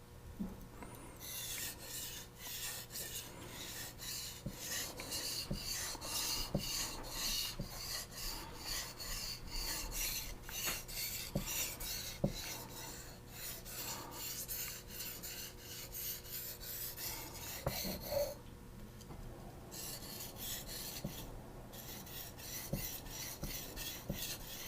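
Steel knife blade being stroked back and forth on a wet sharpening whetstone: a steady rhythm of quick, even scraping strokes, with a short pause about three quarters of the way through before the strokes start again.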